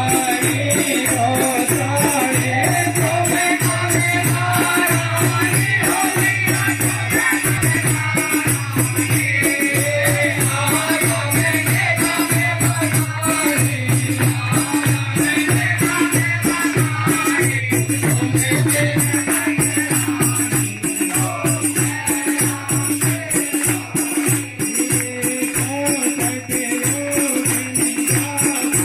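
Hindu devotional aarti music: a wavering melody over a steady bass, driven by a quick, even rattle-like percussion rhythm, about four strokes a second; the beat becomes more pulsing in the second half.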